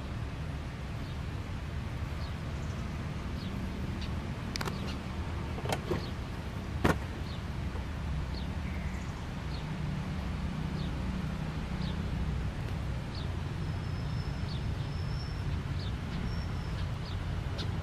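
Outdoor ambience: a steady low rumble with a few sharp clicks near the middle, the loudest about seven seconds in, and faint short high chirps scattered throughout.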